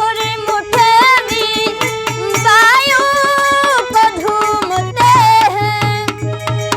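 A woman singing a Hindi folk-style song in long, ornamented held notes over a steady drone and regular hand-drum beats; the drumming grows busier near the end.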